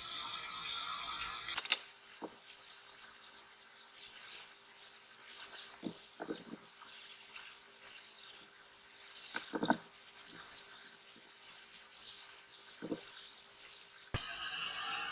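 Hot air gun blowing on a phone's rear glass to soften the adhesive: a steady high-pitched hiss with a few light knocks. Background music plays briefly at the start and again near the end.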